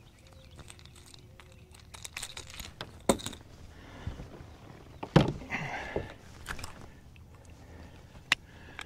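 Quiet handling noises as a just-caught bass is unhooked in a boat: scattered clicks and light knocks, with a sharp knock about three seconds in and the loudest knock about five seconds in, followed by a brief rustle.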